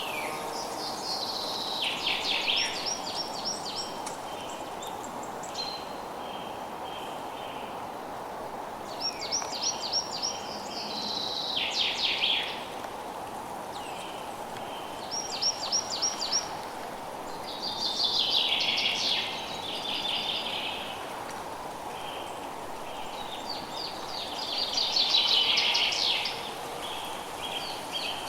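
A songbird repeating a short song phrase every six to eight seconds, about five times: a quick run of rapid high notes falling to a lower flourish at the end. A steady background hiss lies underneath.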